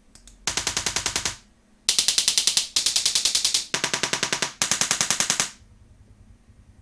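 Needle-impulse (Dirac) test clicks played through a car audio system's speakers for an automatic time-delay measurement: five bursts of rapid, evenly spaced clicks, about ten a second, each burst just under a second long with short pauses between, as the channels are measured in turn.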